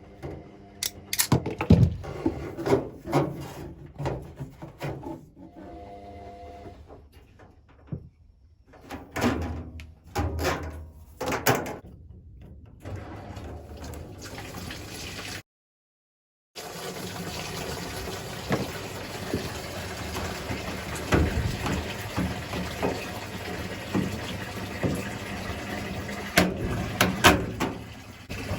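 Indesit Moon SIXL145 washing machine: knocks and clicks, then after a break a steady rush of water with a low hum as the machine fills its drum.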